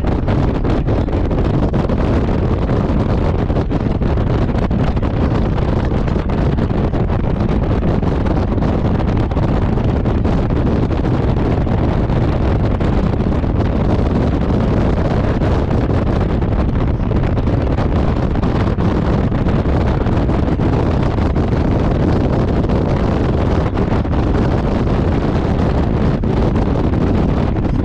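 Wind rushing over the microphone of a Honda Gold Wing motorcycle cruising at motorway speed, with a steady low rumble of engine and road noise beneath. The sound is loud and unchanging throughout.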